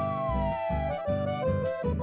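Instrumental chamamé: an accordion plays the melody over an upright bass marking a steady beat about twice a second, the melody falling in a smooth run about halfway through.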